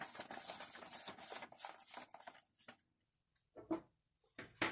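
Faint rustling and rubbing of handling noise as the view is moved across a large paper print, dying away after about two and a half seconds, then two short soft knocks near the end.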